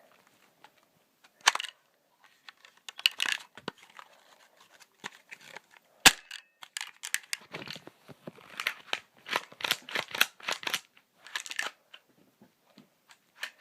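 Daisy Model 340 BB gun being shaken and handled: irregular clicks and rattling, with one sharp click about six seconds in and a run of quick rattles after it. It rattles as if a loose BB is inside, though the gun turns out to be empty.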